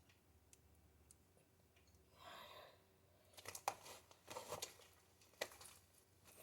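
Faint sticky crackles and squelches of slime being pulled and stretched by hand out of its container, in a few short bursts after a quiet start.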